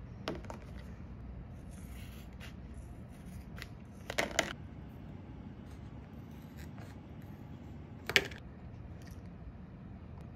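Scissors snipping through empty plastic squeeze tubes: a pair of sharp cuts about four seconds in and a single louder cut about eight seconds in, with faint rustling of the tubes being handled between.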